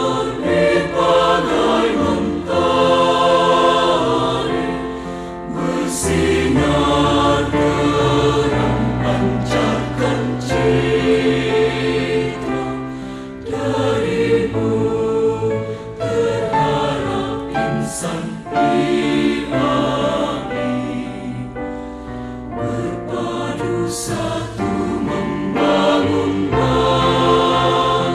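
Music with a choir singing sustained chords.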